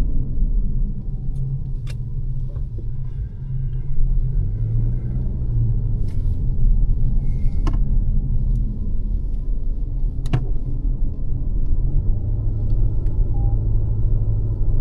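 A car driving, with a steady low rumble of engine and road noise heard from inside the cabin. A few sharp clicks stand out over it.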